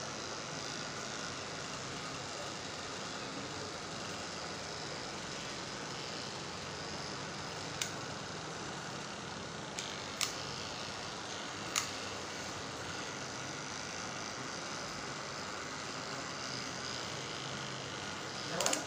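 Cordless electric pet clipper running steadily as it shaves a Persian cat's fur, with a few brief clicks about halfway through.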